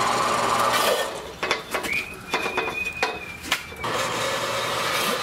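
Horizontal metal-cutting band saw running and cutting aluminum tube. For about three seconds in the middle the steady running drops away, leaving clicks and knocks and a thin high squeal, then the saw's steady sound comes back.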